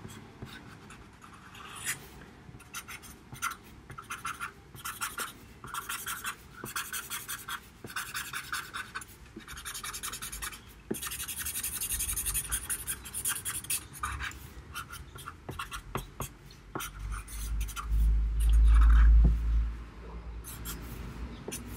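Black Sharpie marker scratching across paper in many quick short strokes as hair is filled in with ink, with a denser run of strokes about midway. Near the end, a low rumble of about two seconds is the loudest sound.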